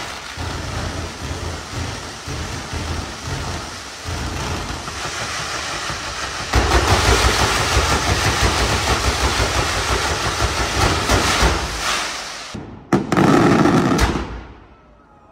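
Fireworks display: a dense, continuous crackling and rumbling from firework fountains and rockets. It grows louder about six seconds in, then a sudden loud burst comes near the end before the sound dies away.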